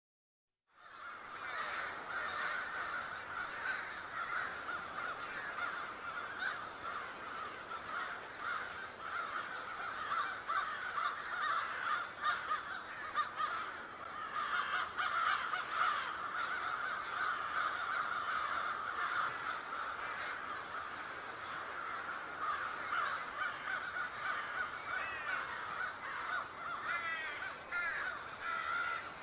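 Crows cawing, with many calls overlapping into a continuous chorus, and scattered sharp clicks on top.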